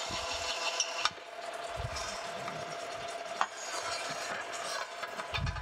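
Drill press running with a steady hum while a countersink bit scrapes the burrs off the back side of drilled holes in a metal panel, the cutting heard in about the first second. Then a few clicks and low knocks as the plate is handled and turned over on the table.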